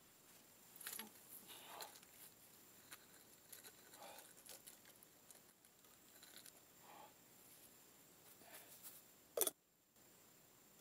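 Faint scattered rustling and scraping as a spade loaded with coins and jewellery is handled, with one sharp click near the end.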